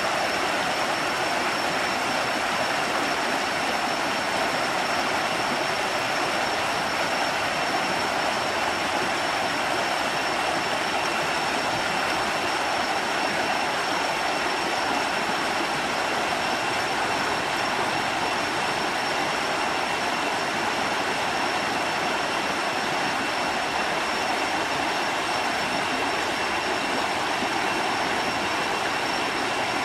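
Steady rushing roar of a waterfall, an even wash of falling water that holds the same level throughout.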